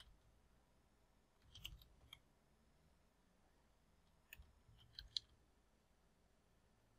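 Faint computer keyboard typing: two short runs of soft key clicks, about a second and a half in and again around four to five seconds in.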